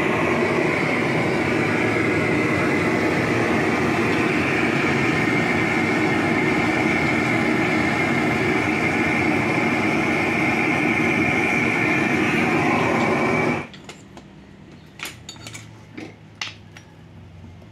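LPG gas torch burning steadily while heating aluminium for casting, then shut off suddenly about three-quarters of the way through. It is followed by a few light metallic clinks of tools on the steel mould.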